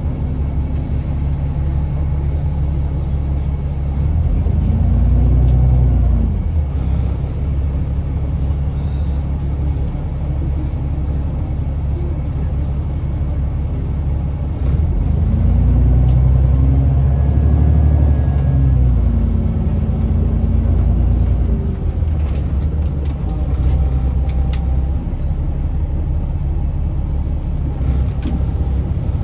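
Diesel bus engine and drivetrain heard from on board: a steady rumble, with the engine note rising and falling as the bus pulls away about four seconds in and again midway through.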